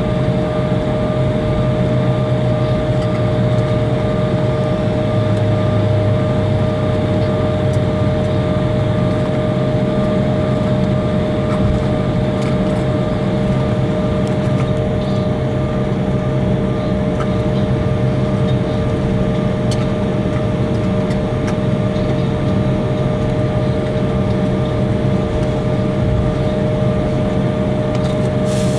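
Steady cabin noise of an Embraer regional jet taxiing after landing: its jet engines at idle, with two steady humming tones over a low rumble.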